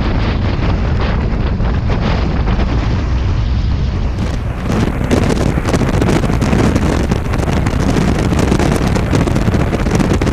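Wind buffeting a motorcycle-mounted camera microphone over the motorcycle's engine and road noise at speed. About four seconds in the sound changes abruptly, becoming brighter and a little louder.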